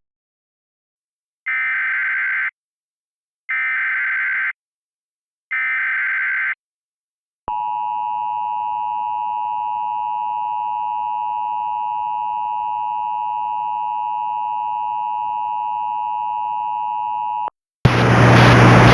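Emergency Alert System header for a required monthly test: three one-second bursts of warbling data tones about a second apart. After a short pause the steady two-tone EAS attention signal holds for about ten seconds and cuts off suddenly. Near the end a loud hiss with a low hum starts.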